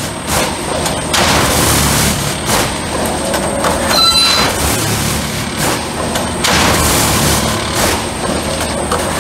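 Railway track tamping machine at work: its hydraulic drive runs loudly under a steady high whine, with repeated surges of noise roughly every second as the vibrating tamping tines work the ballast under the sleepers. A brief metallic squeal about four seconds in.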